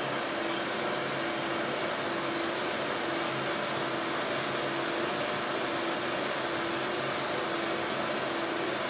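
Broan/NuTone ceiling exhaust fan running: a steady airy whoosh with a motor hum that swells and fades about once a second.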